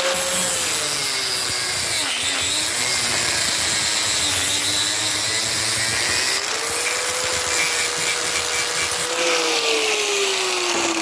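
Power grinder grinding the pressed-over end off a steel Jeep Liberty door-hinge pin: a steady motor whine over the hiss of metal being ground, the pitch sagging as the tool is pressed into the work about two seconds in and again near the end.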